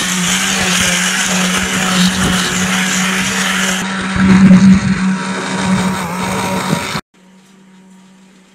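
Electric immersion blender running steadily with a motor hum, puréeing a pot of chunky pumpkin and vegetable soup; the sound cuts off suddenly about seven seconds in, leaving only a faint background.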